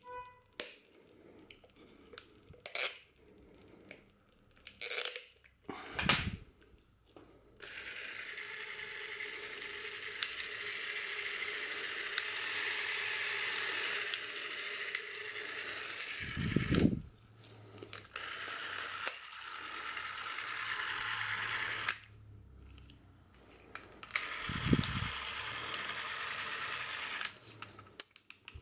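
Bauer C 1 Super Super 8 cine camera, first clicks and knocks of handling around the grip's battery cap, then the camera's motor running in long stretches. It gives a steady whirr with fine ticking, stopping twice briefly with a knock at each break.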